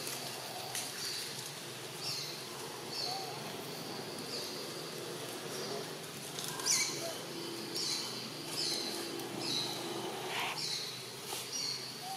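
Short, high chirps, each falling in pitch, repeated roughly once a second, typical of a small bird calling in the forest.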